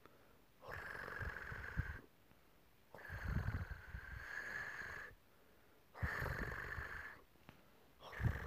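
A sleeping flat-faced, long-haired cat snoring: four noisy breaths about every two and a half seconds, each with a thin whistling tone over a low rattle.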